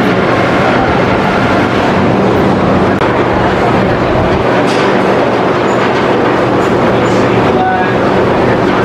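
Wildfire roller coaster train pulling out of the station and climbing the chain lift hill: a loud, steady mechanical rumble and rattle of the lift chain and the train's wheels on the track.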